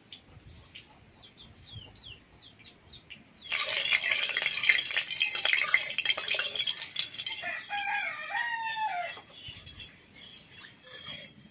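Hot cooking oil sizzling and crackling in a steel wok, starting suddenly about a third of the way in and easing off later. Small birds chirp faintly before it, and a rooster crows over the sizzle past the middle.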